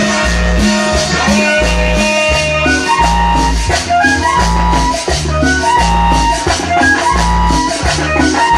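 Latin dance music played loud through a street-dance sound system, with a bass line repeating in a steady pattern under a melody.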